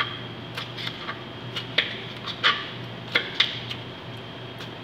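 Chef's knife slicing a red bell pepper on a plastic cutting board: irregular knocks of the blade meeting the board, about two a second.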